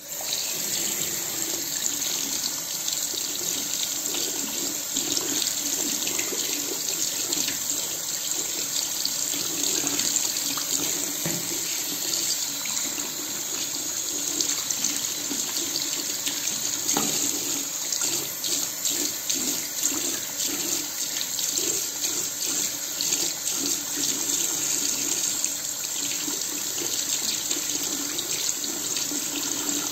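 Tap water running into a sink and splashing over an electric shaver's foil head as it is rinsed by hand to wash out shaved stubble; the tap comes on suddenly at the start, and the splashing shifts slightly as fingers move the head in the stream.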